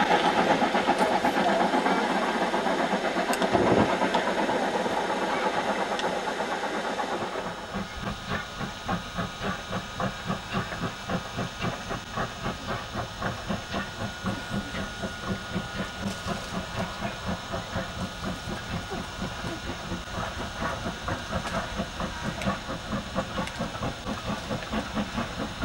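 Steam locomotive working a goods train, a loud, dense hiss of steam and exhaust. About seven seconds in it gives way to the quieter, steady exhaust beats of GWR 4575-class 2-6-2 tank 5542 under way, about two beats a second.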